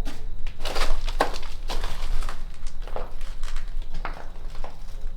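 Footsteps crunching on a debris-strewn floor: a string of irregular, gritty steps, several a second apart.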